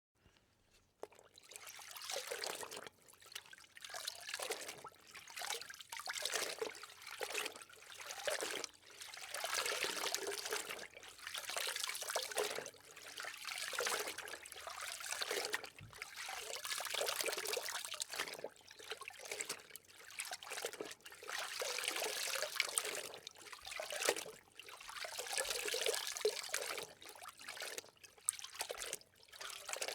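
A series of soaking-in-water sound effects: water trickling in short takes, each swelling for one to two seconds with brief dips between, starting about a second in.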